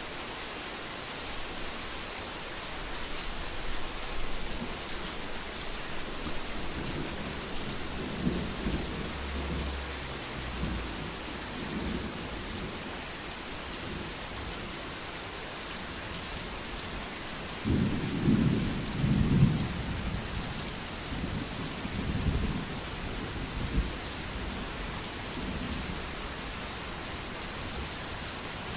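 Heavy rain falling steadily, with low rolls of thunder. A soft rumble comes a quarter of the way in, a louder, longer roll about two-thirds of the way in, and smaller rumbles after it.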